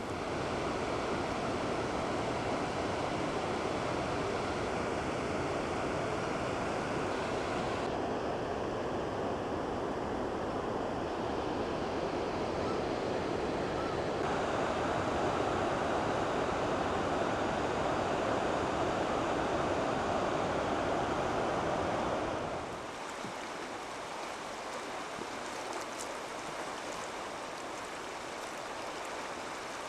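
Rushing water of mountain river rapids, a steady loud rush that drops suddenly to a quieter, thinner flow about twenty-three seconds in.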